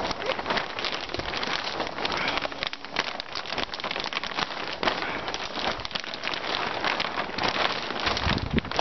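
Polytunnel polythene sheet crinkling and rustling as hands grip, pull and stretch it taut over the frame: a dense, irregular crackle.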